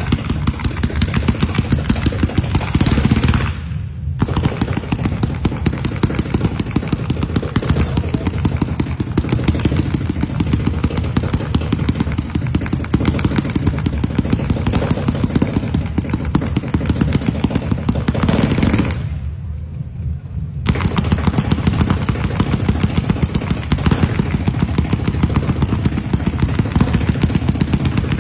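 A long string of firecrackers going off in rapid succession, a dense crackle of sharp bangs many times a second. The crackle briefly thins twice, about four seconds in and around twenty seconds in.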